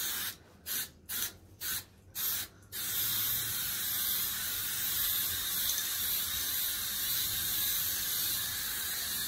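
Aerosol can of automotive spray paint hissing: a run of short bursts, about three a second, then from about three seconds in one steady, unbroken spray.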